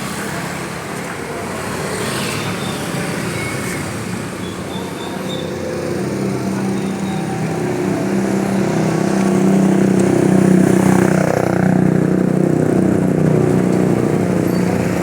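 Road traffic hum, with a vehicle engine droning that grows louder from about six seconds in and is loudest around ten to eleven seconds, as if passing close.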